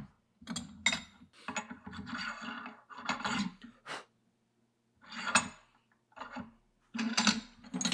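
A series of metal scraping strokes, each under a second with short pauses between: a hand reamer being turned through a new kingpin bushing in an early Ford spindle.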